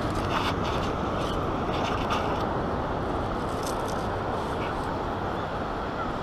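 Wet sand grating and scraping in a metal beach sand scoop as it is lifted and shaken, in three short gritty bursts, over a steady rush of wind and surf.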